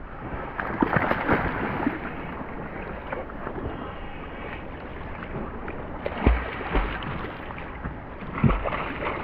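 Water splashing and sloshing around a stand-up paddleboard as it is paddled, with wind on the microphone. A few dull low thumps come through, two close together about six seconds in and another near the end.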